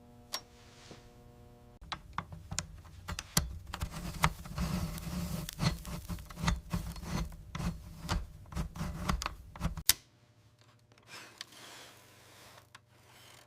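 Rusted typewriter's metal parts being handled and worked on: a run of sharp clicks and taps over rubbing and scraping, dense for most of the stretch, then thinning to a few scattered clicks near the end.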